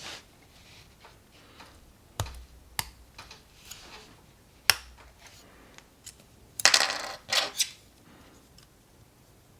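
Hard plastic clicks and clatter from handling a plastic model kit's parts: a few sharp single clicks in the first half, then two short bursts of rattling clatter past the middle, the loudest part.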